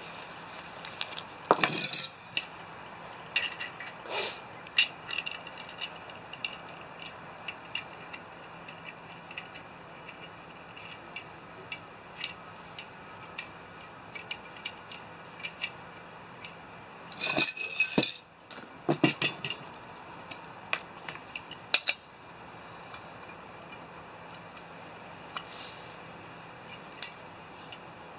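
Metal camping cookware and a small canister stove being handled and set up: scattered clinks and rattles from the metal canteen cup, the stove and the gas canister. There are louder flurries of clattering about two seconds in and again around two-thirds of the way through.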